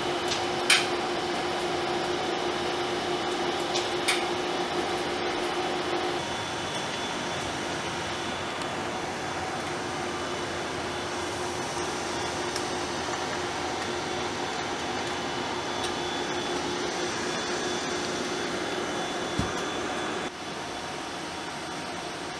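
Cinemeccanica Victoria 35mm film projector running, with the steady whir and hum of its mechanism and fans; two sharp clicks in the first few seconds, and a hum that fades about six seconds in.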